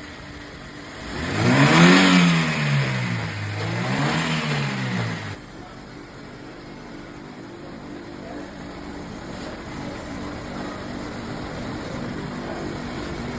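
Car engine revved twice, the pitch climbing and falling back each time. Then it drops suddenly to a quieter, steady idle.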